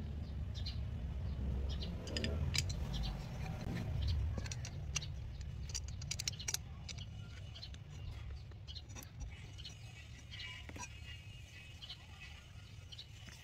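Light metallic clicks and taps as aluminium extrusion profiles, M6 socket head screws and a hex key are handled and the frame is screwed together, over a low steady rumble.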